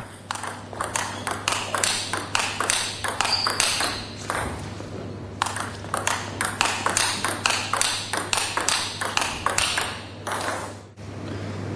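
Table tennis rally of topspin against topspin: the ball clicks sharply off the rackets and the table in quick alternation, about three to four hits a second, until the rally stops about ten and a half seconds in.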